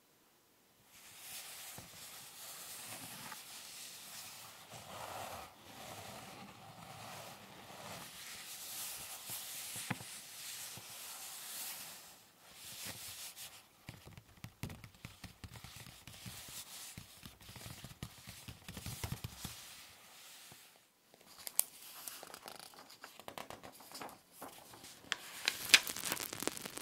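Paper rustling and rubbing as a book's pages are handled and turned, with a run of sharp crinkling crackles near the end.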